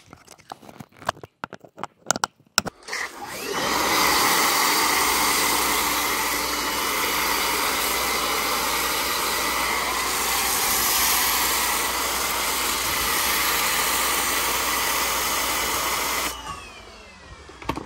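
A few clicks and knocks, then a pressure washer spraying foam through a foam cannon: a loud, steady hiss of spray over the motor's whine for about thirteen seconds. It stops near the end and the whine falls away, followed by a couple of clicks.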